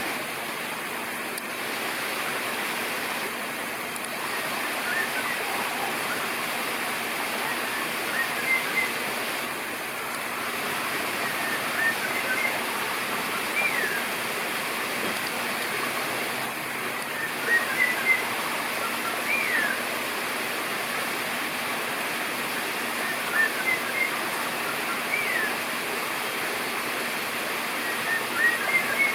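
Steady rush of running water, with a bird's short high chirps and downward-sliding whistles in brief phrases every few seconds.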